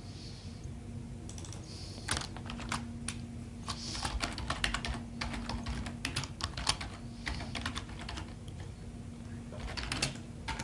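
Typing on a computer keyboard: runs of quick keystrokes, thickest from about two seconds in until about seven seconds, with a few more near the end. A faint steady low hum sits underneath.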